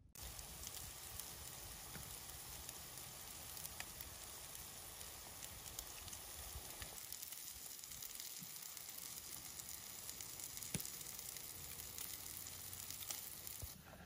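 Satay chicken sizzling on foil on a portable propane grill: a steady hiss with scattered small pops.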